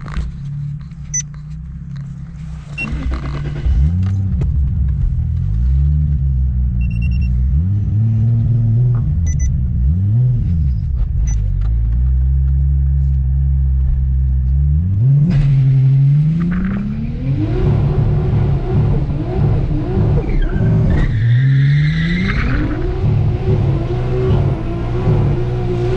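Nissan Silvia S13's engine heard from inside the cabin: idling at first, then revved up and down several times and held. About fifteen seconds in it is revved hard and kept at high revs to the end, with the tyres spinning and screeching.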